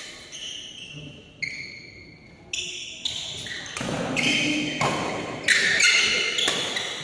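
Badminton rally: sharp racket hits on the shuttlecock about once a second, with short high squeaks between them, growing busier and louder in the second half, echoing in a large hall.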